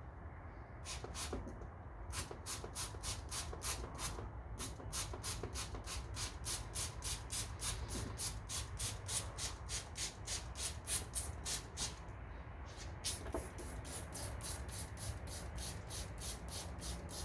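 Hand spray bottle squirted over and over in quick pumps, about three hissing sprays a second with a few short pauses, as cleaner is sprayed to flush residue from behind a headlight lens.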